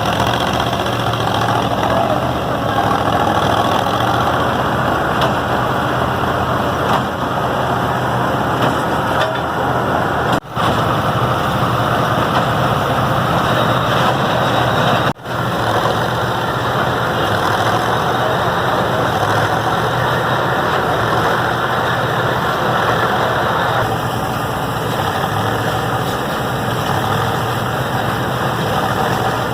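A New Holland model 75 hay baler running at work, with a steady engine drone and machine noise. The sound breaks off for a split second twice, about ten and fifteen seconds in.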